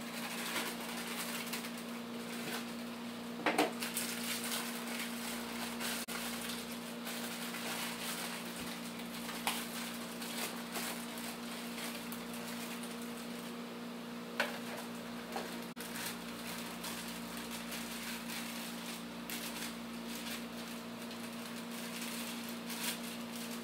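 Handling of a cake-mix box: the cardboard box opened, its plastic inner bag torn open and crinkled, then the dry powder poured into a bowl. The scattered soft rustles and clicks, a few sharper, sit over a steady low hum.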